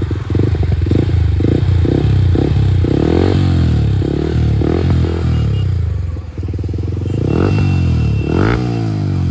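Yamaha MT-15's single-cylinder engine running through an aftermarket full-system exhaust and being revved. There are short throttle blips in the first few seconds, then the pitch rises and falls twice, about three and eight seconds in.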